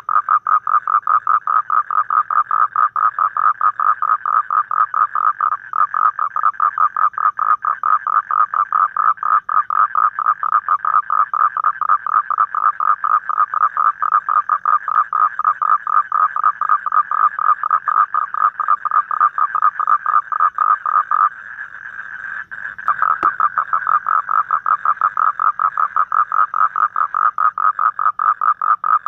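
Toad calling in a long, fast run of even, rapidly repeated pulses. It breaks off for about a second and a half about two-thirds of the way through, with a single click, then resumes.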